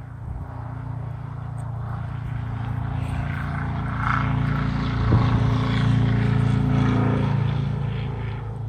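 A vehicle passing on a nearby highway: its engine drone and road noise grow louder over several seconds, then ease off near the end.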